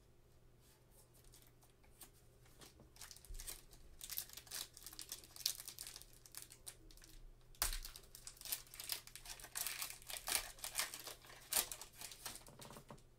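Foil wrapper of a basketball card pack being torn open and crinkled in gloved hands: quiet at first, then irregular crackling from about four seconds in, with a sharper crack about halfway through.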